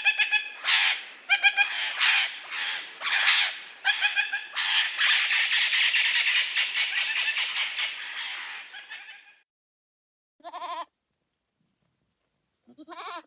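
An animal bleating: harsh, overlapping calls run together for about nine seconds, then stop, followed by two short separate bleats near the end.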